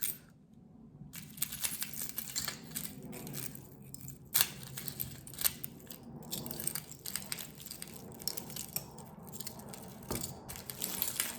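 Costume jewelry and its wrapping being handled: continual rustling and crinkling, with scattered sharp clicks, the loudest about four seconds in.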